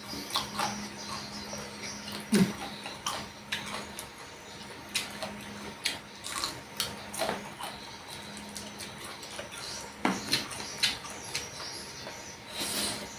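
Close-up eating sounds: chewing and wet mouth smacks with scattered sharp clicks, over a faint steady hum.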